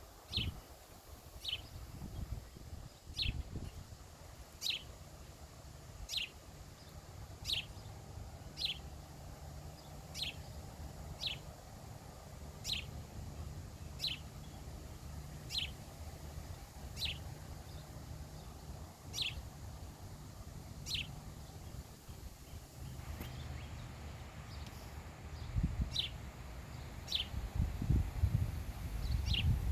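A bird repeating one short, high, falling chirp about once a second. A low rumbling noise runs underneath, heavier in bursts near the end.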